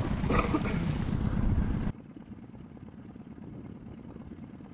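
Wind rumbling on the microphone, loud for about two seconds, then cutting off suddenly to a quieter, steady low outdoor rumble.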